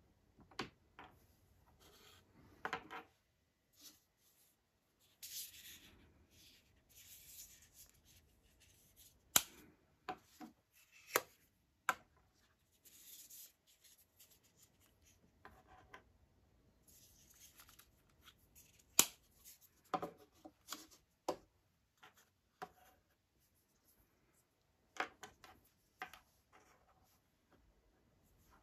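Hard plastic earbuds and their charging case being handled on a wooden tabletop: scattered sharp clicks and taps, with soft rubbing and sliding between them.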